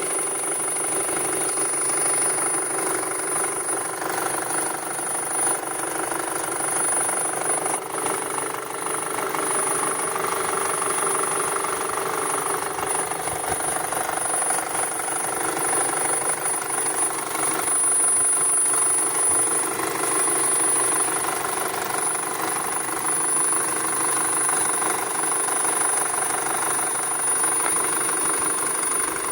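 VW Touran 2.0 FSI direct-injection inline-four petrol engine running steadily, with a constant high-pitched whistle heard over it: the noise the owner reports as a beep coming from the engine.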